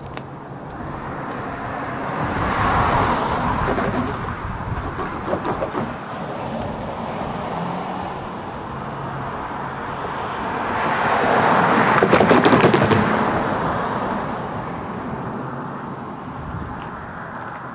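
Road traffic passing: two vehicles go by, one about three seconds in and a louder one about twelve seconds in, each swelling and fading away.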